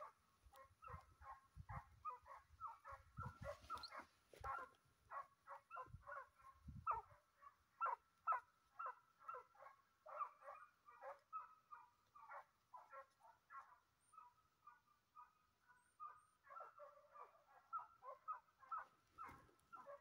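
Hunting hounds baying faintly and far off, several short calls a second with brief lulls. This is the steady cry of hounds working game on a hunt.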